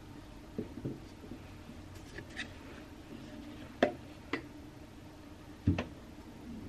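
Toiletry bottles and a tube being lifted out of a bathroom cabinet: a handful of light knocks and clicks. The two loudest come about four seconds in and near the end.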